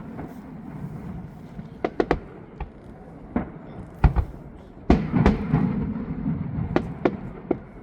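Fireworks bursting at a distance: a string of sharp bangs at irregular intervals, with a louder burst about five seconds in that is followed by a low rumble.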